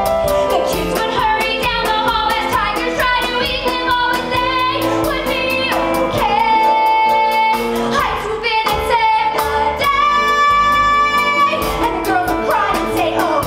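A woman singing a show tune into a microphone over instrumental accompaniment, holding two long notes, about six and ten seconds in.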